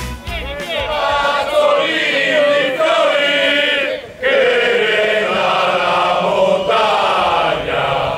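A chorus of male voices singing together in held, chant-like phrases, with a brief break about four seconds in.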